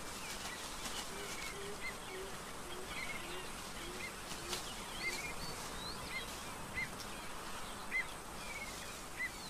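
Forest ambience of birds calling: many short, repeated high chirps throughout, with a run of low, soft, evenly spaced notes in the first few seconds and a few faint clicks.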